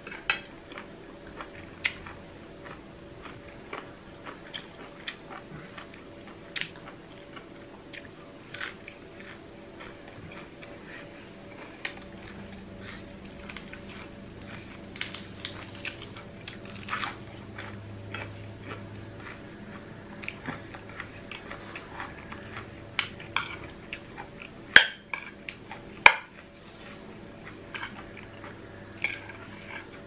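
Eating at a table: chewing of crunchy food with irregular clinks and clicks of cutlery on dishes, two sharper clicks near the end, over a faint steady hum.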